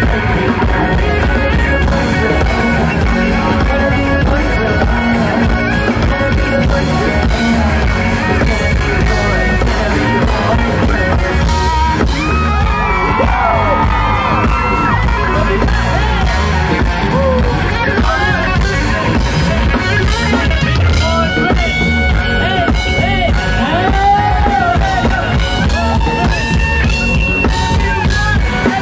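Live pop music with singing, played loud over a concert sound system, with a heavy steady bass under the vocals.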